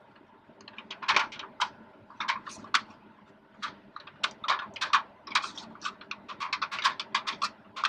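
Thin 321 stainless steel tool wrap, 0.002 in thick, crinkling and clicking as its edge is bent over in a hand seamer to form the second fold of a double seam. The crinkles come as an irregular run of sharp clicks from about a second in.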